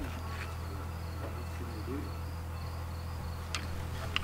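Crickets chirping in an even pulsing rhythm, about three chirps a second, over a steady low hum, with a few faint clicks.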